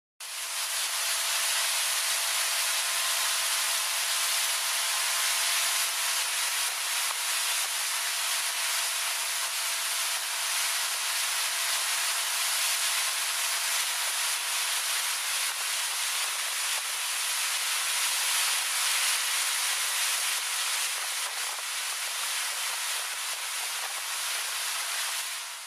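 Steady rushing hiss of a motorboat under way: water churning in the wake and wind going past, with a faint steady hum underneath.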